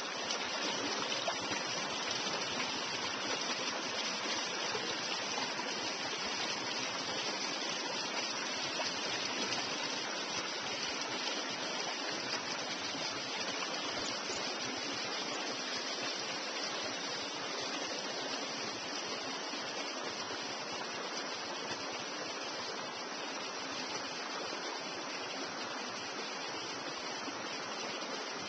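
Creek water running in a steady rush, growing slightly fainter toward the end.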